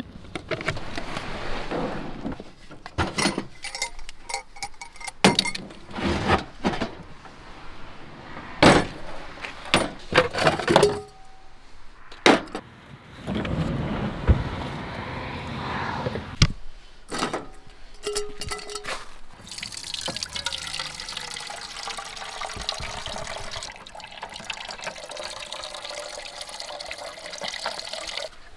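Scattered knocks and clatter of camp cooking gear being handled, then, from about two-thirds of the way in, a steady stream of water running from a plastic water jug's spigot into a cooking pot as it fills.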